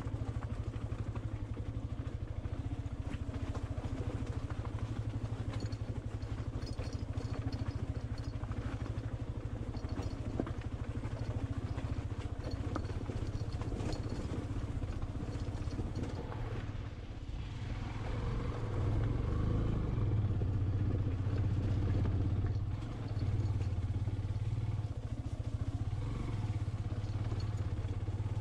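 Motorcycle engine running at low speed while the bike rattles over a rocky dirt track. About two-thirds of the way through, the throttle briefly eases off, then opens again, and the engine runs louder and a little higher.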